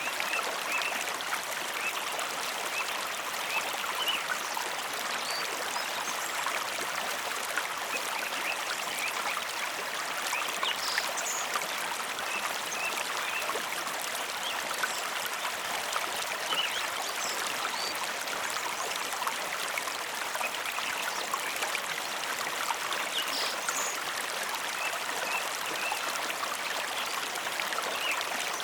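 Mountain river flowing: a steady, even rush of running water.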